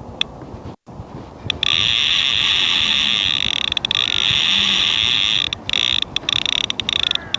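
Fishing reel's drag screaming as a hooked barbel takes line: a loud, steady, high-pitched buzz that starts about one and a half seconds in and breaks into short stop-start bursts near the end. Wind noise on the microphone runs underneath.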